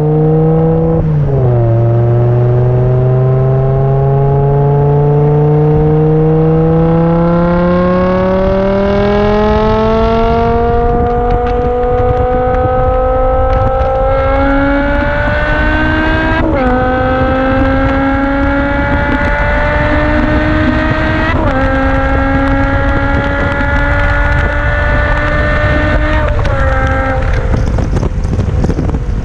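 BMW M5 E60's V10 engine heard right at its exhaust tips while accelerating: the pitch climbs steadily for about fifteen seconds, then dips sharply three times about five seconds apart as it shifts up, and falls away near the end.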